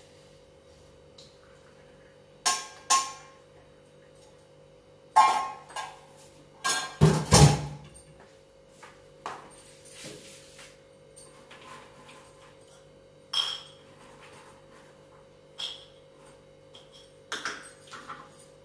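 Kitchen dishes being handled on a countertop: a steel bowl and plastic containers and lids set down and moved, giving scattered clinks and knocks, the loudest a heavy knock about seven seconds in. A faint steady hum runs underneath.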